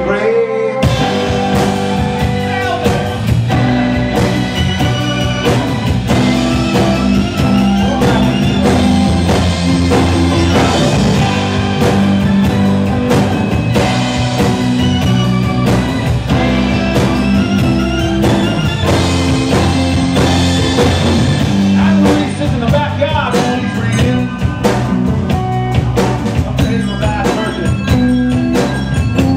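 Live rock band playing electric guitar, bass guitar, keyboard and drum kit. After a brief held chord, the full band comes in with the drums about a second in and plays on steadily.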